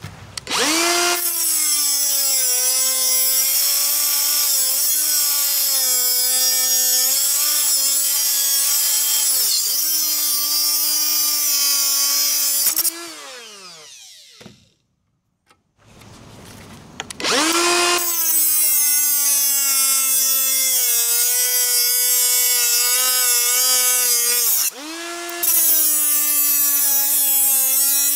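Makita 18-volt die grinder with a 3-inch metal cut-off wheel starts up and grinds through a hardened padlock shackle: a loud, steady high whine over a harsh cutting hiss, its pitch wavering under load. After about twelve seconds it winds down with a falling pitch and stops. A couple of seconds later it spins up again and grinds into a hardened steel chain link.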